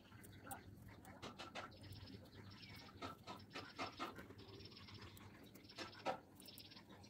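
Faint rasping of wool yarn being drawn through coarse jute cloth in short strokes, several times, with light clicks from the needle.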